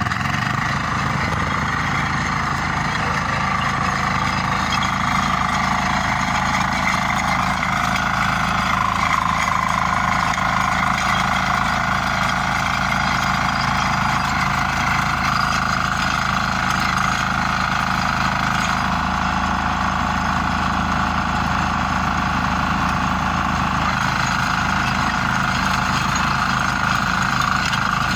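Walk-behind rotary tiller running steadily, its engine working under load as the tines churn the soil.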